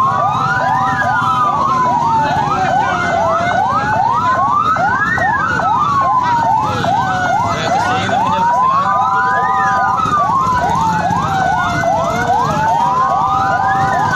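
Several electronic sirens sounding at once: a slow wail rising and falling about every four and a half seconds, over fast repeated yelps and steady held tones.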